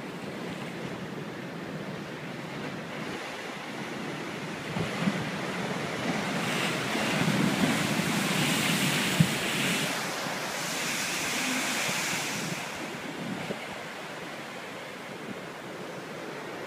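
Ocean waves breaking on a rocky shore: a steady wash of surf that swells into a louder surge from about four seconds in, then eases back after about thirteen seconds. A brief sharp thump comes about nine seconds in.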